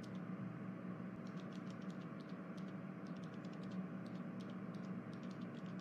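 Faint steady hum of room tone with many light, irregular clicks scattered through it.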